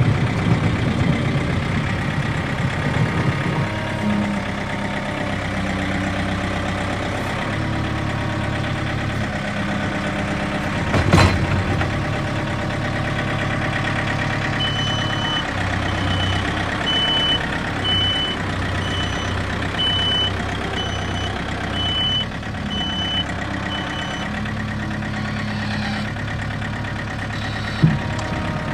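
Backhoe's diesel engine running under load, its speed stepping up and down as it works snow. There is a loud sharp knock about 11 seconds in. In the middle its reverse alarm beeps about once a second for some ten seconds, and a smaller knock comes near the end.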